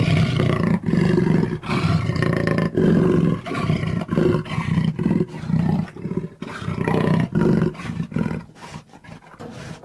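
Cheetah vocalizing: a long run of short, rough, growling calls in quick succession, separated by brief gaps and getting quieter near the end.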